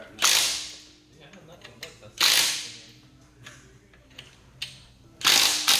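Impact wrench running in three short bursts about two seconds apart, driving the lug nuts of a wheel mounted on spacers.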